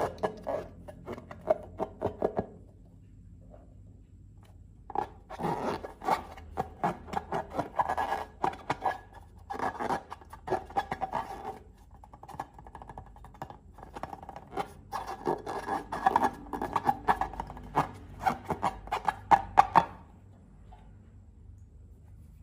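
Glossy slime being squeezed and stretched by hand, making fast runs of clicking and crackling in three stretches with short pauses between.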